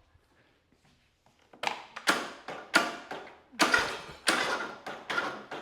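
Briggs & Stratton single-cylinder engine's electric starter trying to crank it, a series of sharp metallic clunks starting about a second and a half in as it lurches and stalls against compression without turning over. This is the sign of a broken automatic compression release on the camshaft.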